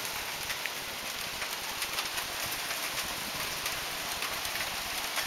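Heavy hail pelting down: a dense, steady hiss of impacts with many sharp ticks from hailstones striking.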